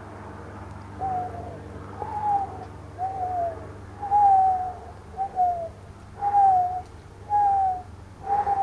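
An animal's short, clear calls repeated about once a second, each a single tone that slides slightly down, over a steady low hum.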